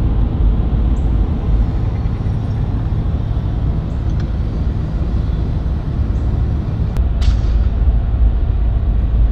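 Steady low rumble of road and engine noise inside a Ram pickup truck's cab while it drives on the highway.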